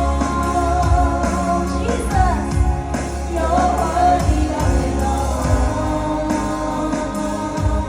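Live praise and worship music: singing over band accompaniment, with held chords, a strong bass line and a steady beat.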